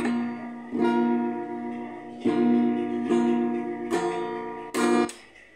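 Acoustic guitar strummed, the closing chords of a song: four strums, each left to ring, the last chord muted by the hand about five seconds in.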